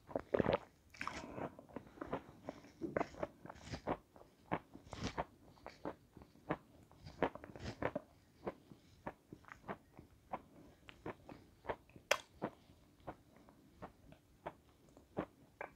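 Close-miked chewing of a crunchy, snow-white lump: a series of sharp crunches, packed close together in the first few seconds, then about two a second as the bite is ground down.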